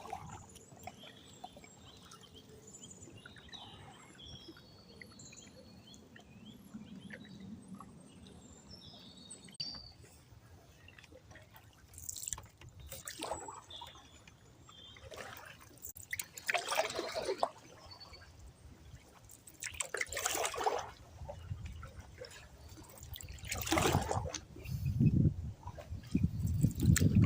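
Canoe paddle strokes swishing and splashing in canal water, one stroke every few seconds and louder toward the end. Birds chirp in the first half.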